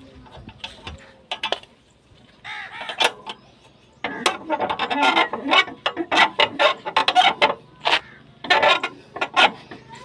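Scissor car jack being cranked up by its handle rod: rapid metallic clicking and creaking. The clicks are scattered at first and become dense and louder about four seconds in.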